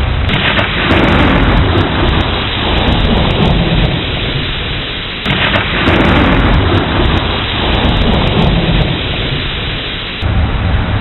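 Thunderstorm: steady heavy rain with rolling thunder. Two loud thunder peaks, one just after the start and one about five seconds in, each dying away into a long low rumble.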